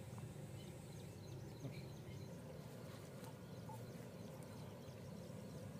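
Quiet outdoor ambience: a steady low rumble with faint short chirps scattered through it.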